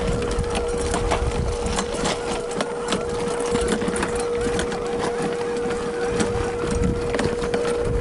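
Tamiya CC-01 RC truck's 55-turn brushed electric motor and gearbox whining at a steady pitch while it drives, with its tyres crackling and crunching over loose ground.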